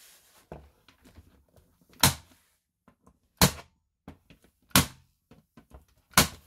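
Rubber mallet striking a wooden wall panel: four heavy thunks about a second and a half apart, knocking the board into place.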